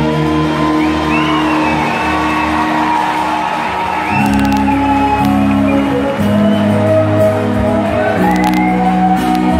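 Live Greek band music played on bouzoukis and keyboard over a steady bass line, the chords changing about four seconds in, with shouts and whoops from the crowd.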